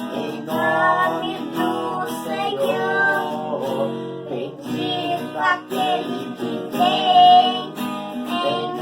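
A boy and his father singing a church hymn together, with acoustic guitar accompaniment.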